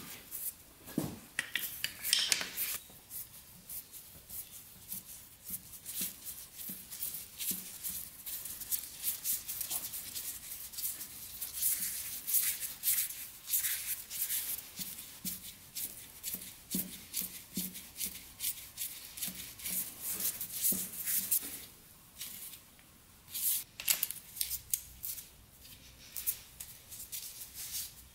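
Irregular light clicks and rubbing scrapes of gloved hands threading a compression tester's hose fitting into the spark plug hole of a two-stroke dirt bike's cylinder head, with a brief lull near the end.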